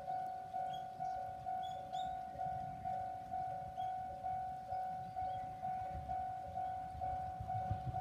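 Japanese level-crossing warning bell ringing at about two strokes a second, each stroke a two-tone ding that fades before the next. A low rumble builds over the last two seconds as a train approaches.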